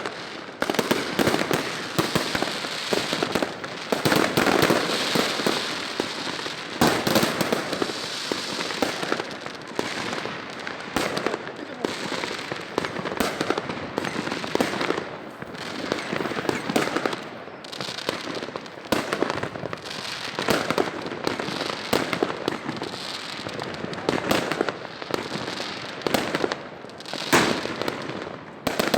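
Fireworks going off: a dense, continuous run of bangs and crackling with no break.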